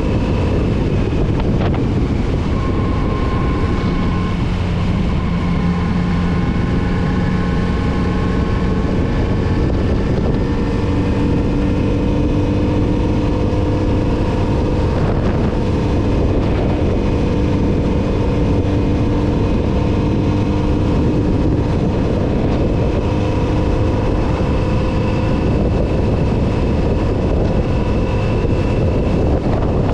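Kawasaki Z900RS inline-four engine running under way on the motorcycle, its note shifting several times with throttle and gear changes, under heavy wind noise on the microphone.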